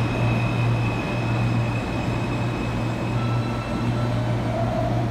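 R160 subway train pulling out of the station and running away down the track: a steady low rumble and rush of wheels on rail, with a thin high whine over it for the first few seconds.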